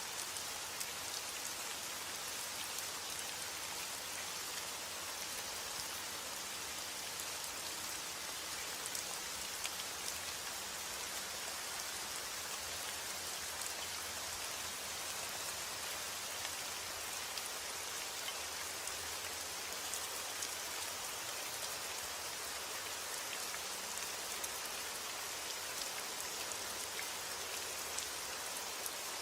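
Steady rain falling, with the patter of many individual drops landing on a surface.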